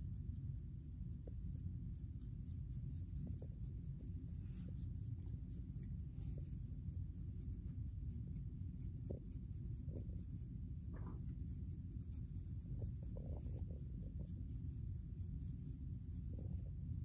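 Black plastic fine-tooth comb scratching through short, coily hair against a dry, flaky scalp with dandruff: a quick run of light, fine scratching strokes over a steady low hum.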